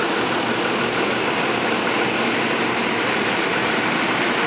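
Steady rushing running noise of a vehicle in motion, even in level, with no rise or fall of a train passing close by.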